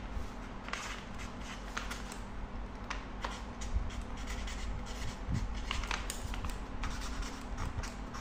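A marker pen writing on a brown paper envelope, in short irregular strokes with small taps of the tip, over a steady low hum.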